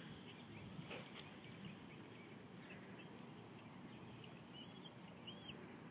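Near silence: faint outdoor ambience, with a couple of faint bird chirps near the end.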